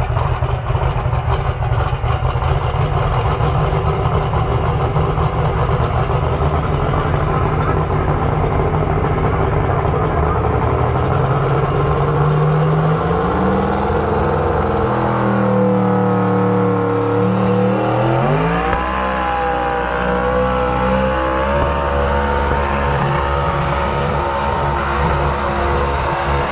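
Modified pulling truck's engine running loud and rough at the start line, then revving up and down from about halfway through. A little past two-thirds of the way in it climbs sharply to high revs and holds there as the truck pulls the weight sled down the track.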